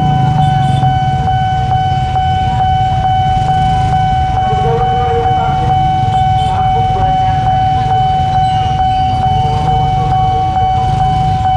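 A train running past on the rails with a steady low rumble and regular clicking, over a continuous high, steady ringing tone.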